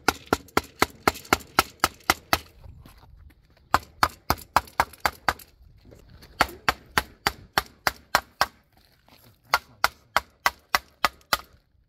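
Steel-headed hammer striking a cement edge strip to crack it apart. The blows are sharp and quick, about four a second, in four runs separated by short pauses.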